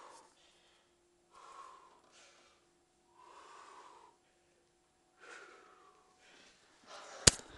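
A person breathing hard in effortful puffs, four or five of them a second or so apart, then a single sharp knock near the end.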